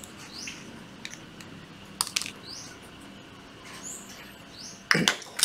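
Small birds chirping faintly, short falling chirps repeated through the background. A couple of sharp clicks about two seconds in and a louder clatter of knocks near the end come from a cordless drill body being handled and set down on a tile floor.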